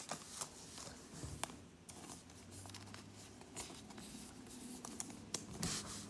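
Faint rustling and scattered small clicks of trading cards and a plastic card sleeve being handled.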